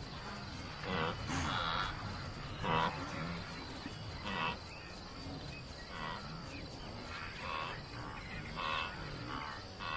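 Herd of grazing animals calling: short calls repeated about once a second, over steady high insect chirring.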